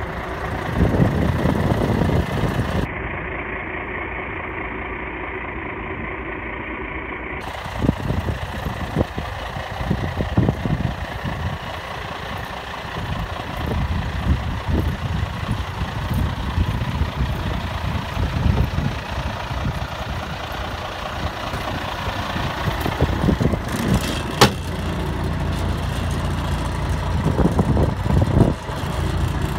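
Diesel engine of a 1990 International Acco 2250D fire truck running, mostly at a steady idle. A single sharp knock comes about 24 seconds in.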